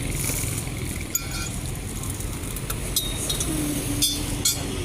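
A few sharp metallic clinks, like tools knocking against metal during engine fitting work, over a steady low rumble of vehicle engines.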